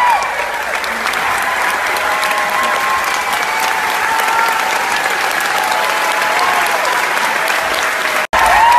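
Theatre audience applauding a curtain call. A held high tone sits over the clapping at the very start and returns after a sudden brief break near the end.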